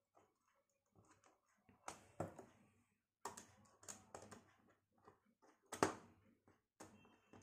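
Irregular light clicks and taps of a yellow insulated wire being bent and fitted to the brass screw terminals of a plastic switch-and-socket board, with the wire and fingers knocking on the plastic. The sharpest click comes just before six seconds in.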